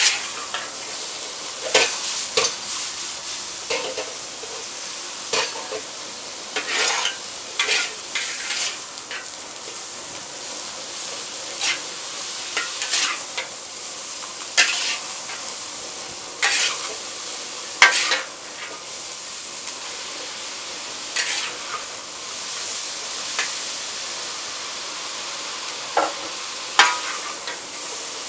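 Vegetables, shredded cabbage and carrots, sizzling in a hand-hammered wok, with irregular scraping and clanking of spatulas against the wok every second or two as they are tossed.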